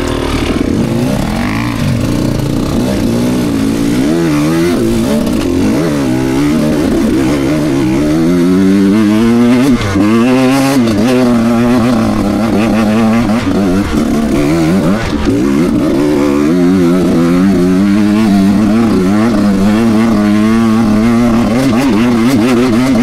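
Enduro dirt bike engine heard close up from the rider's position, its pitch rising and falling over and over as the throttle is opened and closed while riding a forest trail.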